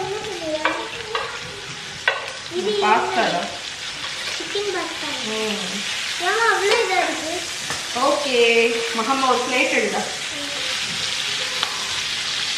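Chicken pieces frying and sizzling in butter in a pan, with stirring from a wooden spoon and a few sharp snips of kitchen scissors cutting the chicken in the pan. Pitched, voice-like sounds come and go over the frying.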